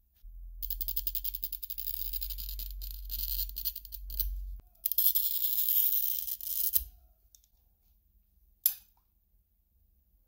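A hand cutter scraping along a steel ruler in two long scoring passes over a sheet, each made of many short scratchy strokes, followed about two seconds later by a single sharp click.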